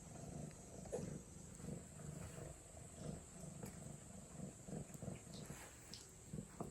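Domestic cat purring, a low rumble that pulses about two to three times a second.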